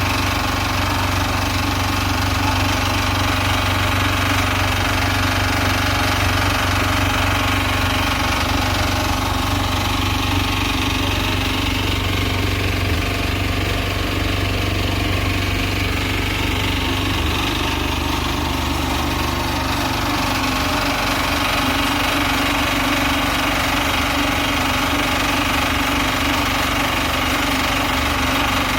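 Two engine-driven cement mixers running steadily while concrete is mixed for the pour.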